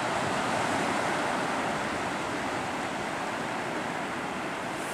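Steady rush of surf washing onto a sandy beach, easing off slightly toward the end.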